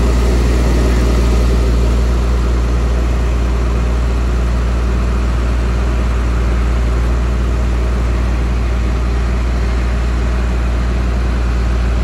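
Heavy diesel engine running steadily at a constant low speed, a deep even hum with no change in pitch.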